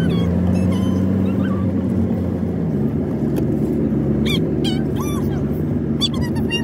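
Car running, heard from inside: a steady engine and road drone whose pitch drops about three seconds in, with short high chirps over it.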